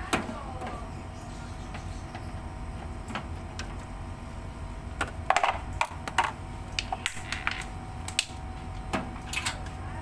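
Plastic service-valve cover of an air-conditioner outdoor unit being unscrewed and pulled off: a sharp click at the start, then scattered plastic clicks and rattles, busiest about halfway through, over a steady low hum.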